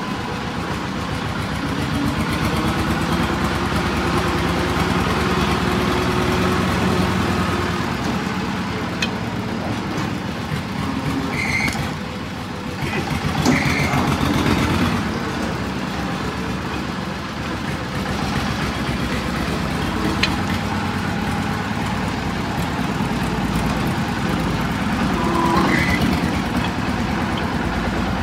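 An engine runs steadily in the background. A broad hoof-trimming blade pares an overgrown donkey hoof on a rubber-covered block, giving a few short scrapes and knocks.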